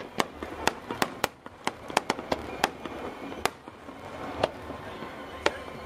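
Aerial fireworks shells bursting in a fast string of sharp bangs for the first few seconds, then single bangs about a second apart.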